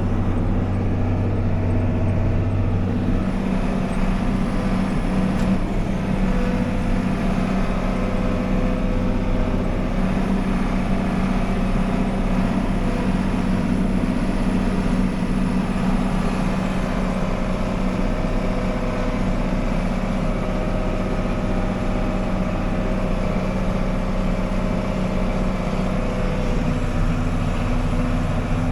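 Combine harvester running steadily in a soybean field: a continuous diesel engine and machinery drone, with a low hum that drops away about three seconds in.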